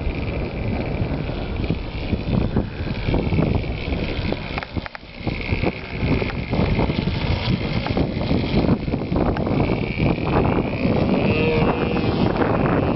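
OS .46 LA two-stroke glow engine of a Tribute 36 RC airplane running at high speed, a steady high-pitched whine that weakens in the middle and comes back strongly near the end. Heavy wind buffets the microphone throughout.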